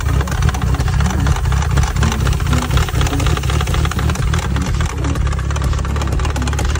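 Outboard boat motor idling steadily with a rapid, regular knock from inside the engine. A knock like this is a warning sign that can lead to scored pistons or total engine failure.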